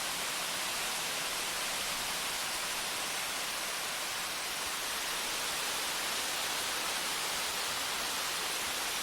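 Steady rushing of shallow river water running over rocks, an even hiss with no breaks.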